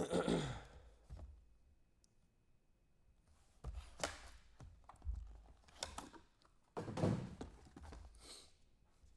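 Trading-card boxes and packaging being handled on a table: a loud rustle right at the start, then a run of knocks and rustles in the second half.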